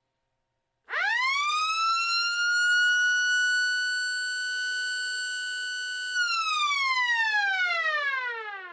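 A 6-volt mechanical siren starts about a second in, its pitch rising quickly to a steady high wail. It holds for about five seconds, then winds down with a falling pitch as its rotor slows after power is cut.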